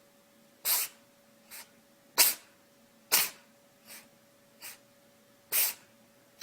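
A small pet sneezing again and again: four sharp, hissy sneezes with softer ones between.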